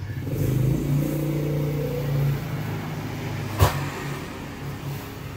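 A road vehicle's engine running loud, then fading over the last few seconds, with one sharp knock about three and a half seconds in.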